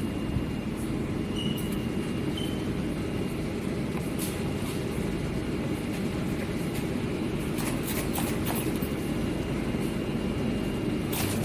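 Steady low rumble of workshop machinery with a faint high whine, broken by a few light clicks and knocks around four, eight and eleven seconds in.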